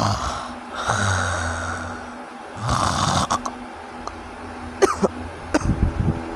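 A sleeping person snoring, with two long noisy snores about a second and three seconds in, then a few short, sharp sounds in the breathing near the end. This is snoring of the kind the uploader presents as obstructive sleep apnea.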